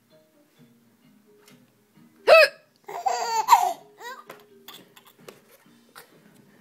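A woman's single sharp hiccup about two seconds in, followed half a second later by a baby's burst of laughter: a quick run of high-pitched laughs lasting about a second.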